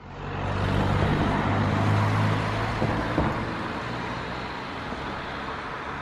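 Road traffic: a motor vehicle's engine hum over a steady rush of tyre and road noise, loudest about two seconds in and then easing off.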